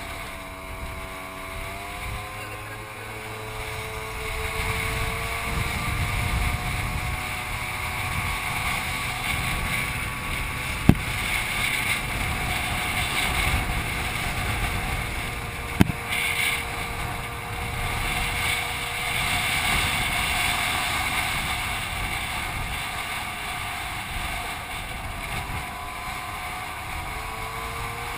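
Scooter engine running while riding, with wind buffeting the microphone; the engine pitch wavers in the first couple of seconds and rises near the end. Two sharp clicks about five seconds apart midway.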